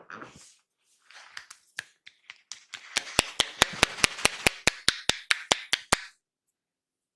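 Percussive hand strokes of a barber's massage: about a second in, rubbing over the skin with a few scattered taps, then a rapid, even run of sharp slaps, about five a second for some three seconds, that stops abruptly.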